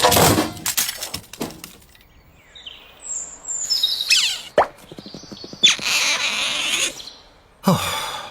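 Cartoon sound effects: a few pops and knocks, then high chirping whistles with a quick falling swoop, followed by two short bursts of hissing noise.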